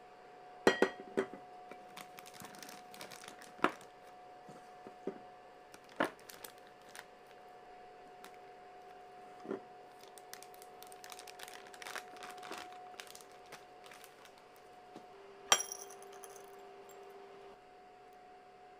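Scattered clinks and knocks of a spatula against a stainless steel mixing bowl, with a plastic piping bag rustling as meringue is spooned in; the sharpest clink, with a ringing tail, comes near the end. A faint steady hum runs underneath.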